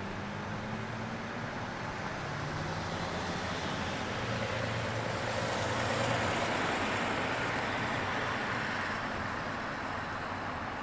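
Vehicle noise that swells to a peak about six seconds in and then fades, over a low engine hum at the start.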